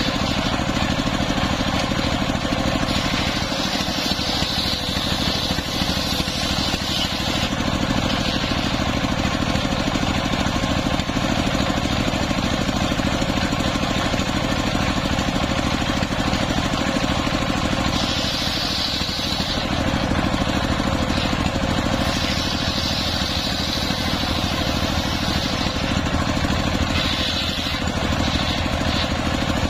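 A belt-driven circular saw runs steadily on its stationary engine. The big blade rips planks of waru (sea hibiscus) wood, and the cutting hiss rises over the engine several times as the wood is fed through.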